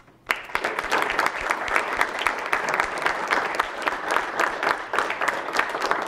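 An audience applauding, the clapping breaking out suddenly just after the start and going on steadily.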